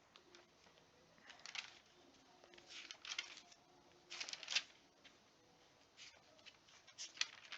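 Faint paper rustling in several short bursts, Bible pages being leafed through to find a passage.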